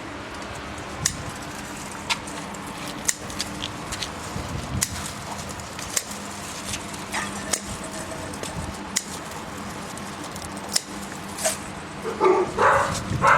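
Scattered sharp clicks and taps, roughly one a second, over a steady low hum. About twelve seconds in comes a brief, louder animal-like whine.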